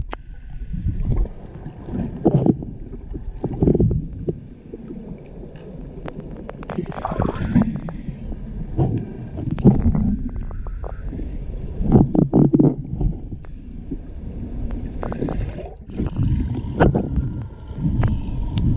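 Muffled underwater sound through an action camera's housing just below the surface: water sloshing and gurgling in irregular surges, with scattered clicks.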